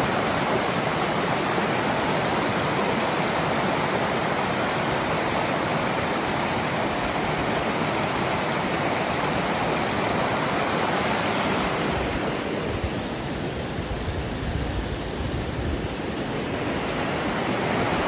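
Shallow forest creek rapids running over boulders: a steady rush of water. About twelve seconds in, the rush turns a little duller, with a low rumble underneath.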